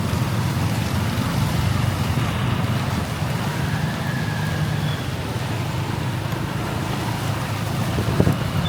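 Steady road noise from riding a motorbike through traffic in heavy rain: a low rumble of engine and wind under an even hiss of rain and wet road. A brief sharp knock sounds near the end.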